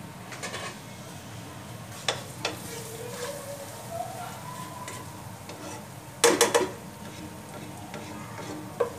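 A spatula stirring spices and ginger-garlic paste in hot oil in a nonstick kadhai, scraping and tapping against the pan over a light sizzle. A louder clatter of quick knocks comes about six seconds in.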